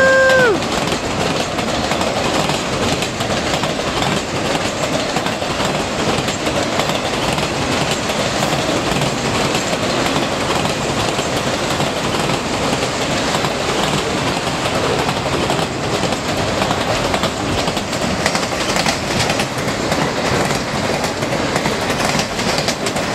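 A long train passing close by: a steady, loud rush of wheels and cars on the rails. The last of the locomotive's horn blast cuts off about half a second in.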